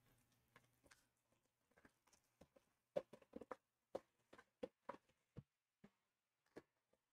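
Faint handling noises: a run of sharp clicks and taps, about a dozen between three and six and a half seconds in, as a trading-card hobby box and its packs are opened and handled.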